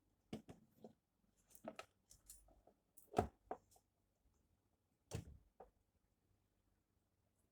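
Scattered soft knocks and clicks in a small room, with the loudest knock about three seconds in.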